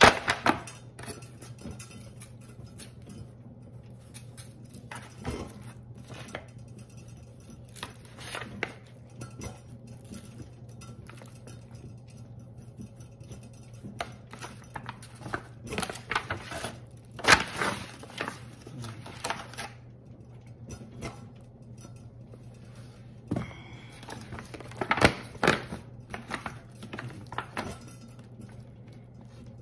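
Disposable aluminium foil pan crinkling and knocking as hands turn and rub seasoning into a whole raw chicken, in scattered bursts with quieter gaps, over a low steady hum.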